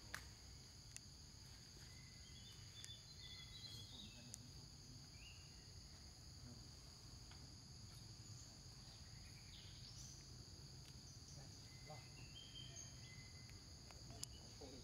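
Near silence: a faint, steady high insect drone over a low background rumble, with a few faint short chirps now and then.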